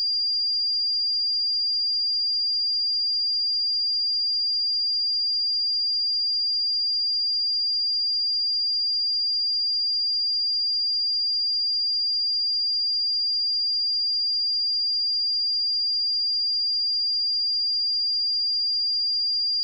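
A pure 4795 Hz sine-wave test tone, one steady high-pitched whistle at constant level, used for checking speakers and headphones.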